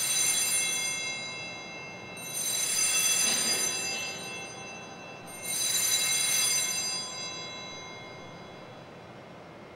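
Altar bells rung three times, about two and a half to three seconds apart, each ring bright and fading away.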